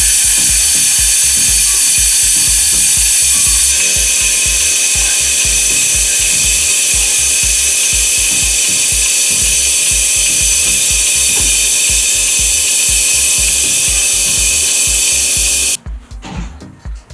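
A loud motor-driven machine running steadily with a low rhythmic pulse, changing its note slightly a few seconds in and cutting off suddenly near the end.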